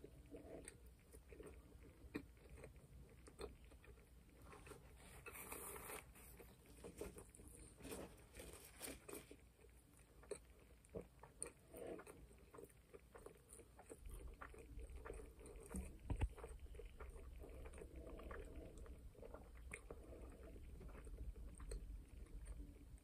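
A person chewing and biting a McDonald's McGangBang burger: faint, wet mouth sounds with many small clicks and smacks, one sharper click after the middle.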